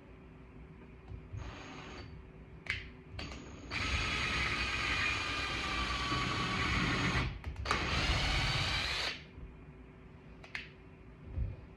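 Power drill run in trigger bursts: a short pull about a second and a half in, then a long run of about three and a half seconds and, after a brief break, another of about a second and a half.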